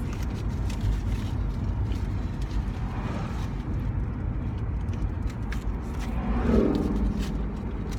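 Steady low rumble inside a parked car, with scattered light clicks and rustles of handling, and a short hummed vocal sound about six and a half seconds in.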